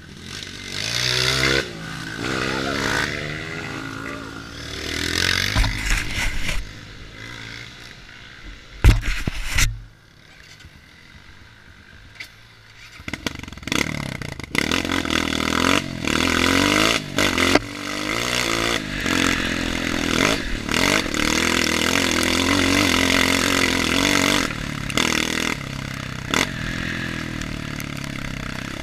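Honda CRF230 trail bike's single-cylinder four-stroke engine revving up and down under throttle, with rattling and scraping from the bike over rough ground. There is a sharp loud knock about nine seconds in, a quieter stretch after it, and then the engine runs hard and steadily for the second half.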